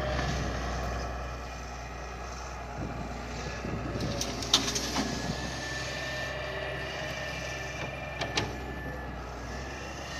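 Excavator's diesel engine running steadily with a faint whine over it, and a few sharp knocks: the loudest about four and a half seconds in, two close together near the end.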